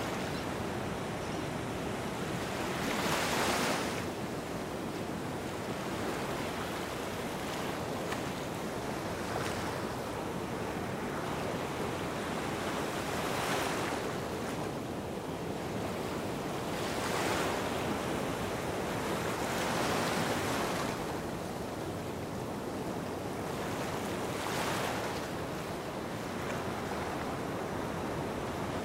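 Sea waves washing onto a sandy beach: a steady wash of water, swelling about five times as waves break and run up the sand.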